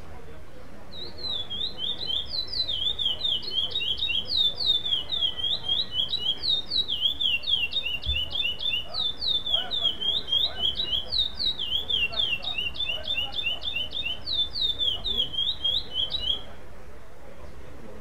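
Male chestnut-bellied seed finch (curió) singing one long, continuous song of rapid, sliding whistled notes. The song starts about a second in and stops near the end. It is a contest song of the 'sem repetição' (non-repeating) type.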